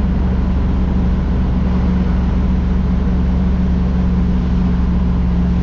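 Truck running down the road, heard from inside the cab: a steady low rumble of engine and road noise with a constant hum.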